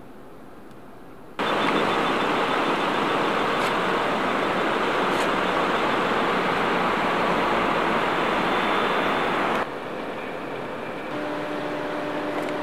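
Steady rushing noise of road traffic that starts suddenly about a second and a half in and cuts off abruptly about eight seconds later, leaving a quieter background hum.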